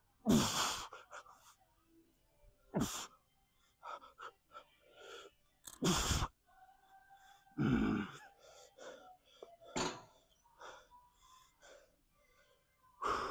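A man's forceful exertion breaths, about five sharp exhalations a couple of seconds apart, some with a strained grunt, from pushing through the reps of a set of a kneeling lat exercise.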